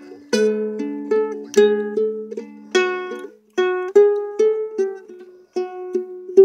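Luna ukulele with its A string tuned down a whole tone, played as plucked single notes and chords in a slow melody. Each note rings out and fades, with short pauses between phrases.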